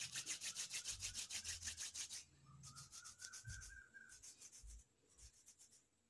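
Palms rubbing quickly back and forth, rolling a piece of soft rice-flour dough into a thin strand between the hands. It is a fast, dry rubbing of about nine strokes a second that breaks off about two seconds in, starts again more sparsely, and dies away after about five seconds.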